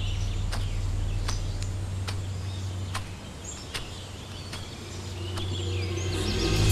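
Countryside ambience of birds chirping, with scattered short sharp clicks. A low background drone fades out about halfway, and music swells in near the end.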